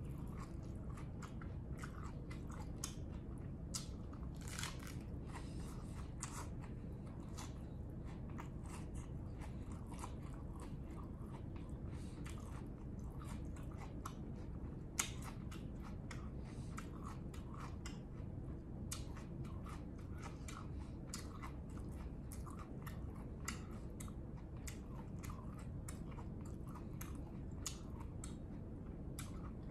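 Close-up mouth sounds of chewing a mouthful of lettuce ssam wrap with bulgogi: many irregular crisp crunches and wet clicks of the lettuce and meat, over a steady low hum.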